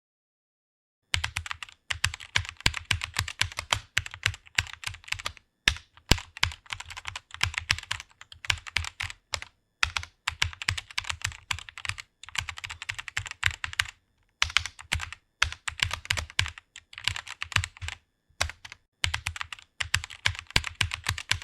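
Typing on a computer keyboard: rapid runs of keystrokes starting about a second in, broken by brief pauses between bursts.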